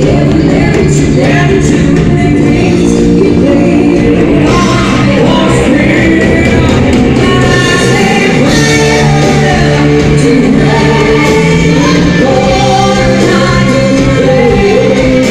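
A live band playing loud music with a singer, heard in a large hall.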